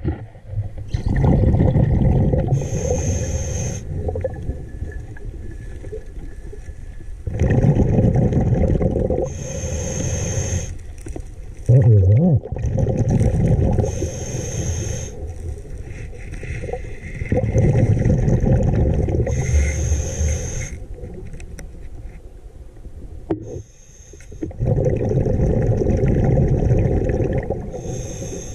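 A scuba diver breathing through a regulator underwater: long rumbling bursts of exhaled bubbles alternate with a short high hiss of each inhaled breath, about five breaths in all.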